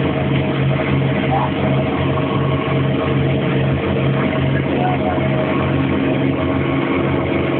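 Towboat's engine running at a steady speed, one unchanging drone, over the rush of the churning wake.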